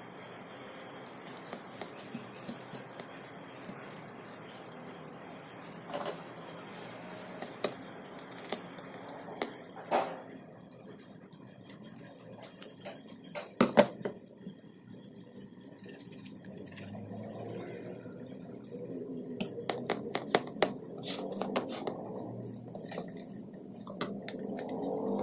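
Hands handling dried fish fillet and nori sheets on an enamel plate: light scraping with scattered clicks and taps against the plate, the loudest a pair of knocks about halfway through and a run of small clicks later on.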